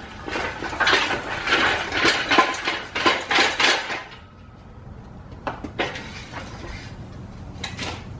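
Ratchet socket wrench clicking in quick repeated strokes as a large bolt on a steel yoke upright is tightened, for about four seconds. Then a few scattered metal clicks.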